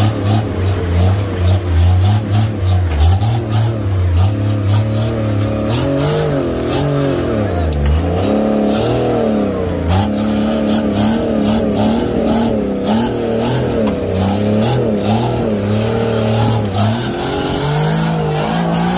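Modified off-road 4x4's engine revving hard under load as it crawls up a steep rocky bank, the revs rising and falling unevenly, with scattered sharp knocks.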